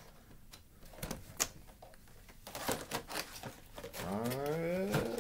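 Light clicks and taps of plastic toy packaging being handled, then, about four seconds in, a cat's long meow rising in pitch.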